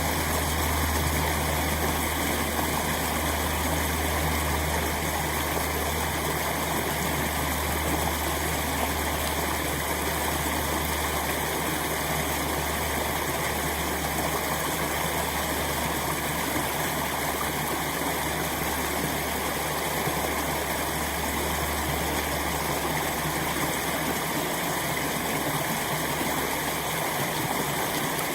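Water rushing steadily through a breach in a beaver dam.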